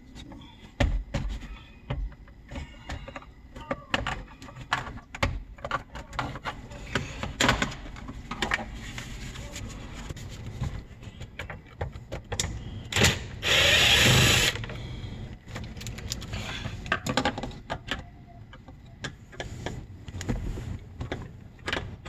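Scattered clicks and knocks of tools working the plastic door-panel trim. About two-thirds of the way through, a cordless power driver runs for about a second, driving a screw out of the armrest panel of the car door.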